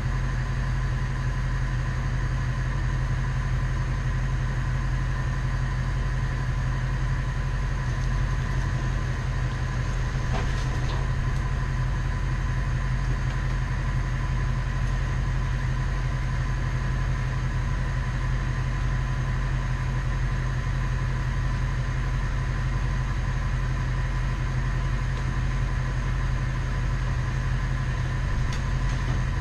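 Bucket truck engine running steadily, with a steady whine over its low drone.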